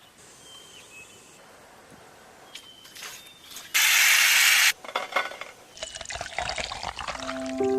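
Faint bird chirps, then a loud hiss that starts and stops abruptly and lasts about a second. After it, water splashes and pours unevenly, growing louder. Piano music comes in near the end.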